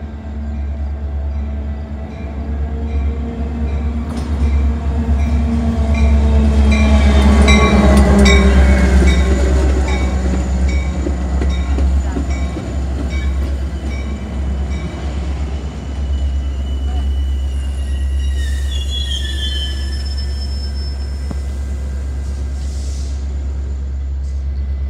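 Metra commuter train with an MP36 diesel locomotive pulling into the station: the sound builds to its loudest about eight seconds in as the train passes close, with a regular clicking of wheels on the rails. About eighteen seconds in, brakes squeal in high tones as the train slows to a stop, and a steady rumble continues after.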